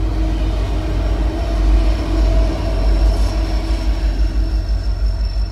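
BNSF diesel locomotives at the tail of a loaded coal train passing close by. Their engines run with a low rumble over the rolling of wheels on rail, loudest about two seconds in, then easing slightly as the train moves off.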